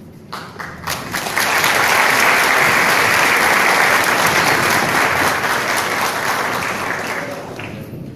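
Audience applauding: a few scattered claps swell into full applause within about a second, hold steady, then die away near the end.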